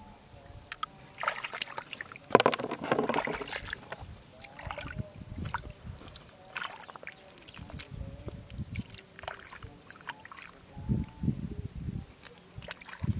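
Hands digging in wet river mud and shallow water to feel for clams, squelching and sloshing in irregular bursts; the loudest splash comes about two seconds in.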